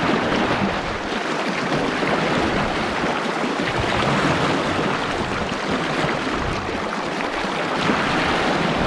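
Fast mountain river rushing steadily, a strong current flowing around the wading angler.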